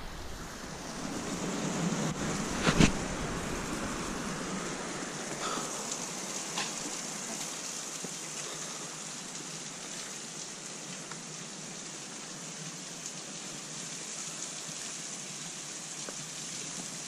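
Steady hiss of ocean surf, with a few sharp knocks, the loudest about three seconds in.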